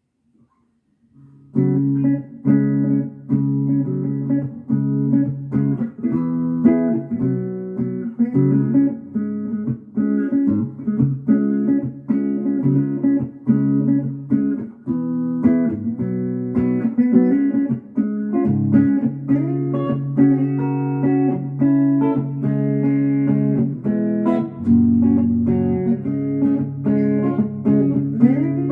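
Swender Pinecaster guitar being played, starting about a second and a half in: a run of picked notes and chords over held low notes, with bent notes in the later part.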